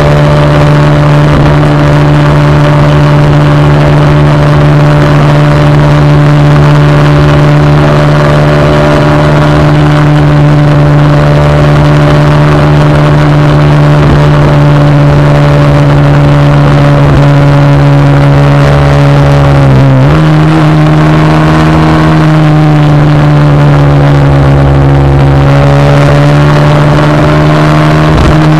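Motorcycle engine pulling at steady revs on an uphill climb, over a rush of wind noise. About two-thirds of the way in, the revs dip sharply and then pick up again to a slightly higher steady pitch.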